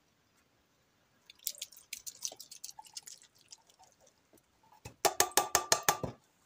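Canned whole kernel corn and its liquid being dumped into a crockpot. A patter of kernels drops and splashes in, then near the end comes a quick run of about nine sharp taps.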